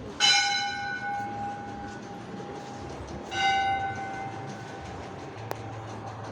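A temple bell struck twice, about three seconds apart, each strike ringing on with several overtones and fading away over a second or two. A short sharp click follows near the end.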